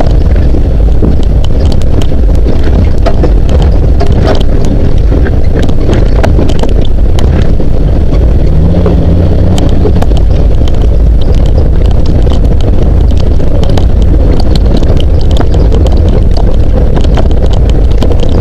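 Jeep CJ7 driving over a rough dirt trail, heard from a hood-mounted camera: a steady, loud, low engine-and-road rumble with wind buffeting the microphone, broken by frequent sharp knocks and rattles from the bumps.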